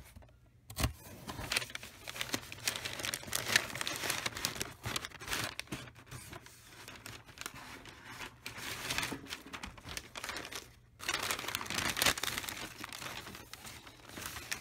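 Packing paper crinkling and crumpling, with rustling and some tearing, as a shipping box is unpacked by hand. The crackling is irregular and comes in spurts, with short pauses about half a second in and around eleven seconds.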